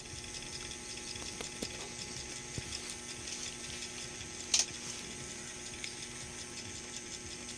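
Steady background hum with faint scattered clicks and light plastic-bag rustles as a bag of tilapia fingerlings is held and shifted in shallow pond water, with one sharper click a little past halfway.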